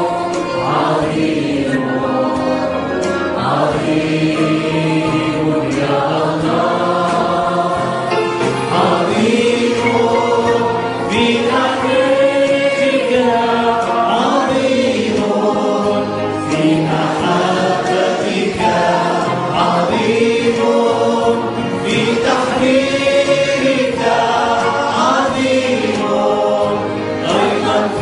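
Church worship group, men's voices and a woman's, singing a praise hymn together into microphones in long held, wavering phrases. The lyrics hail God as great for his grace and for healing from sickness.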